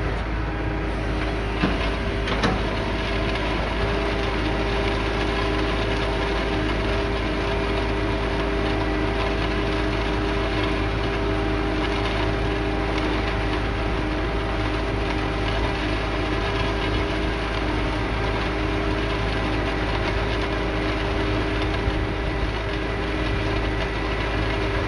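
Tractor engine running steadily, with a couple of light knocks about two seconds in.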